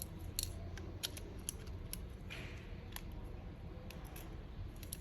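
Light clicks and taps of small phone parts being handled and fitted as a smartphone's motherboard goes into its frame, with a short scratchy rustle about two seconds in.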